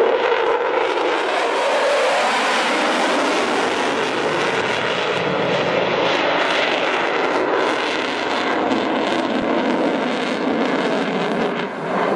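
Eurofighter Typhoon's two EJ200 turbofan engines at full power, with the afterburner lit as the jet climbs away: a steady, loud jet noise with no pauses.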